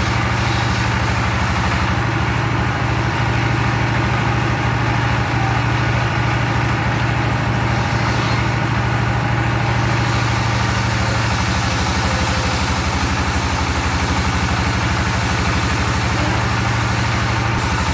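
Engine of a circular log sawmill running steadily at an even speed.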